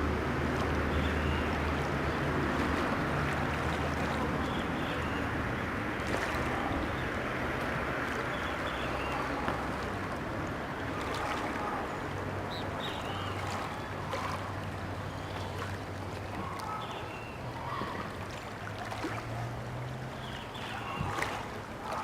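A motorboat engine hums low and steady, loudest in the first half, with short bird chirps scattered over it.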